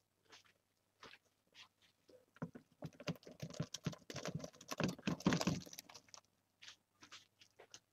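Cooked potato chunks sliding out of a bowl and plopping into a pot of thick cheese soup. A dense run of wet splats and thuds starts about two and a half seconds in and lasts about three and a half seconds.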